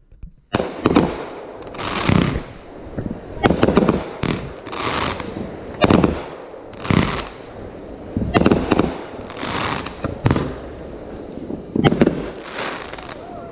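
Fireworks going off in a rapid series of bursts, roughly one a second, some with crackling.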